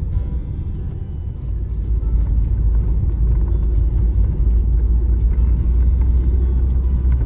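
Ford Transit Custom camper van driving on the road: a steady low rumble of engine and tyres that gets louder about two seconds in.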